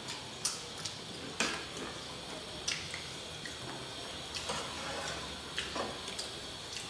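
Eating by hand from metal plates: fingers scraping and mixing rice and curry against the plates, with a few sharp clinks scattered through.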